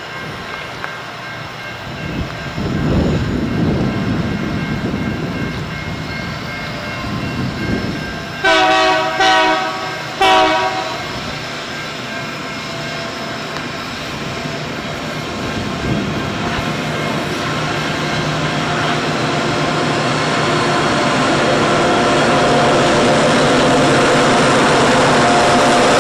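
Diesel freight train approaching, led by SCT Logistics locomotive SCT003. Its horn sounds three short blasts in quick succession about eight to ten seconds in, then the engine and wheel noise grow steadily louder as the train nears.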